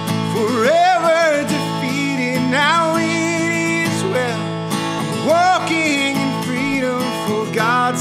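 A man singing a worship song, accompanied by his own strummed acoustic guitar.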